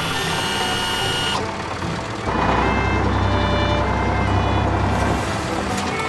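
Cartoon tractor engine sound effect: a low, steady rumble that comes in about two seconds in and runs for about three seconds. A brief high tone sounds at the start.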